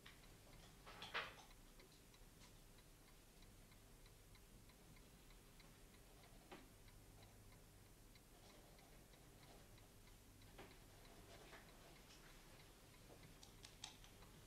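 Faint, steady ticking of a mantel clock in near silence, with a soft rustle about a second in.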